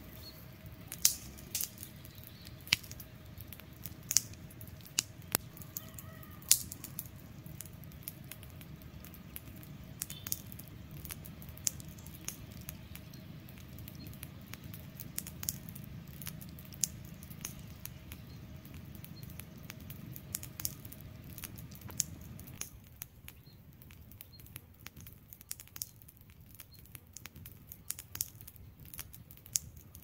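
Wood campfire crackling, with sharp irregular pops and snaps from the burning logs over a low steady rush of flame; the low background drops away suddenly near the end while the crackles go on.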